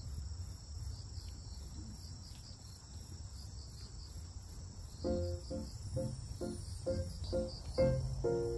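Crickets chirping in a steady, even pulse of about four chirps a second over a low background rumble. About halfway through, soft background music of short repeated notes comes in.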